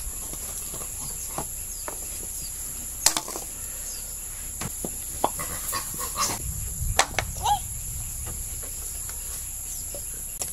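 Dried coconut halves knocking and clattering now and then as they are handled and dropped on the pile, the sharpest knocks about three and seven seconds in. Under them runs a steady high insect drone, and a bird gives a short chirp near the end.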